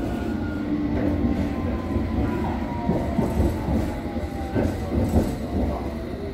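London Underground Hammersmith & City line train running: a steady low rumble with a motor whine that slowly falls in pitch, and scattered clicks of the wheels over the rails.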